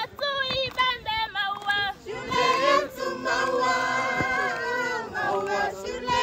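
A group of school students singing together. Short sung phrases open it, then from about two seconds in many voices sing a held chorus together.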